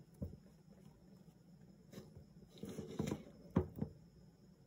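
Cardboard phone boxes handled on a wooden tabletop: a light knock, a brief scuffing slide a couple of seconds later, then two quick knocks near the end.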